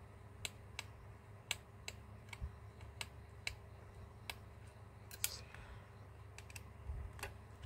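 Faint, irregular small clicks and taps as fingers handle and pry at small parts inside an opened Huawei P20 lite smartphone.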